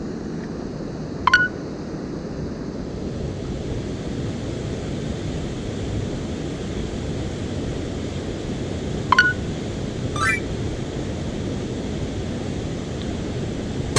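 Mountain stream water rushing steadily. Two brief, sharp, rising high sounds come about a second in and again about nine seconds in, and a quick rattle of clicks follows about ten seconds in.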